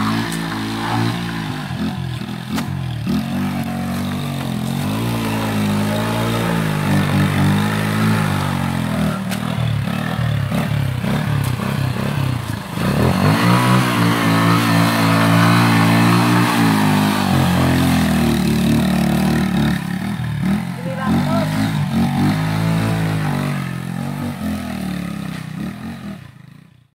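Small motorcycle engine revving hard and unevenly as the bike is worked free of a muddy rut, its pitch rising and falling. About halfway through the revs drop sharply for a moment, then climb high again, and the sound fades out at the end.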